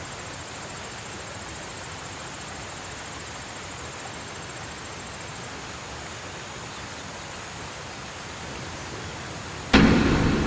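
Steady rushing of a stream. Near the end a sudden loud hit cuts in and fades away slowly.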